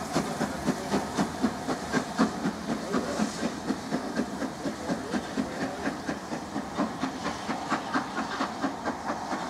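Four-cylinder LMS Princess Royal Pacific steam locomotive 46201 'Princess Elizabeth' working slowly, its exhaust beating in a quick, even rhythm over hissing steam.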